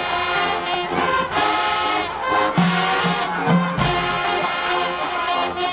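Marching band playing, led by its brass section of trumpets and trombones holding full chords.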